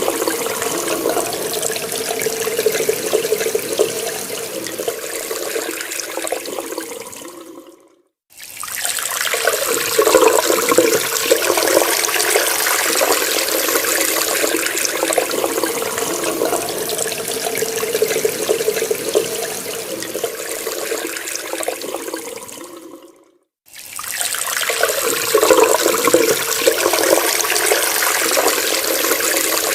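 Water running from a tap in a steady splashing stream. Twice, about eight and twenty-three seconds in, it dies away over a couple of seconds to silence and then starts again abruptly.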